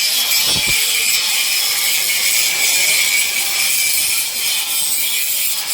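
Power tool running: a loud, steady, high-pitched hissing noise.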